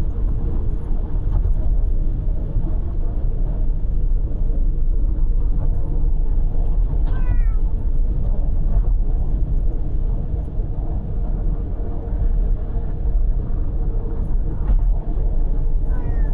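A domestic cat meows a few times, each call falling in pitch, the clearest about seven seconds in. Under it runs the steady road and engine rumble of a moving car.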